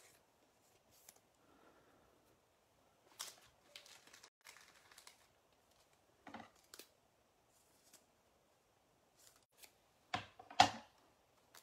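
Trading cards being handled on a table: scattered short scrapes and clicks of cards sliding and being set down, with a louder knock near the end.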